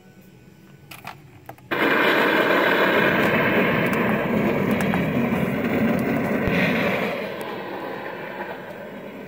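A Halloween prop's "try me" demo sound effect playing through its small speaker. A couple of light clicks come first; then, about two seconds in, a loud rushing, rumbling noise starts suddenly, holds, and fades away over the last couple of seconds.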